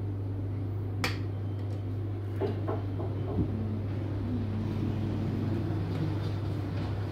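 Steady low hum of running equipment in a small room, with a few light clicks and knocks about one, two and a half and three and a half seconds in.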